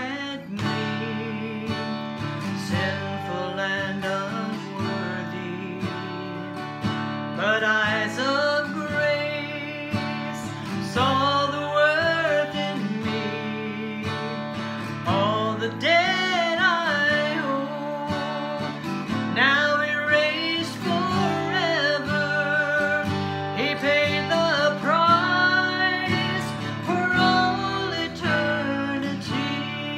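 A woman singing while accompanying herself on a steel-string acoustic guitar, strumming chords under the vocal line in phrases.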